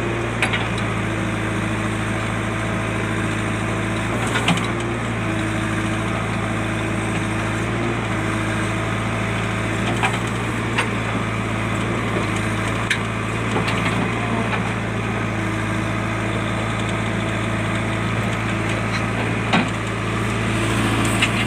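JCB backhoe loader's diesel engine running steadily, its pitch shifting a little as it works, with a few sharp knocks scattered through.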